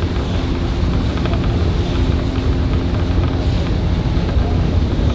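Engine of a motor launch running steadily at speed, a low drone with wind buffeting the microphone.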